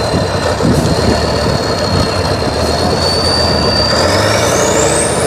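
Tatra 815 6x6 trial truck's diesel engine working steadily under load as the truck climbs a dirt slope, with a high whine over it that holds one pitch and then rises sharply over the last second or so.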